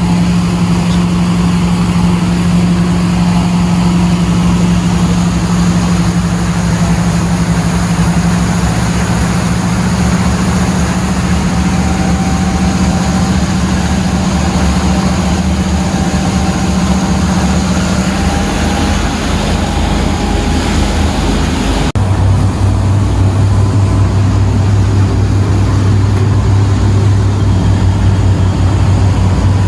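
Sea Ray 360 Sundancer cruiser running under way: a steady engine drone over the rush of its wake and wind. About three-quarters of the way through the sound cuts abruptly to a lower, steady engine hum.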